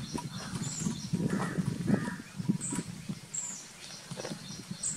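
A bird giving short, high chirps about once a second from halfway through, over low rustling and knocks.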